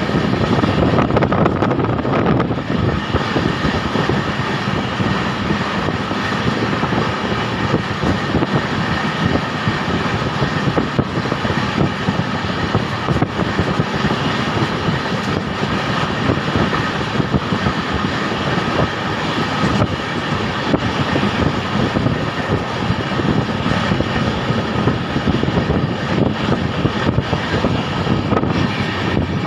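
Long-distance passenger train running along the track: a steady rumble and rattle of the coaches and wheels.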